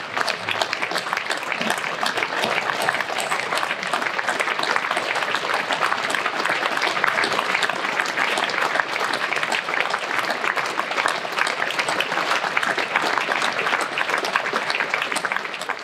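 Audience applauding, a dense clapping that eases off near the end.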